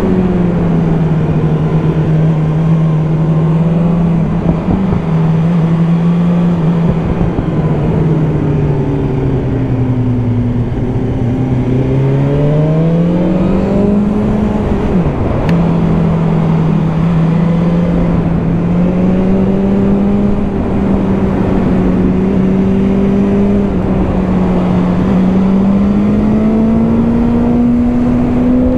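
Motorcycle engine running while riding, with wind rush over the microphone. The engine note sinks, climbs again about halfway through, breaks off briefly with a click, then rises slowly.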